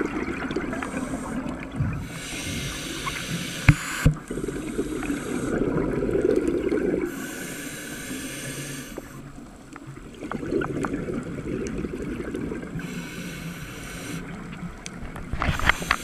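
A scuba diver breathing through a regulator, heard through an underwater camera housing: several breaths, each a hissing inhalation followed by bubbling exhaled air. A few sharp knocks come about four seconds in and again near the end.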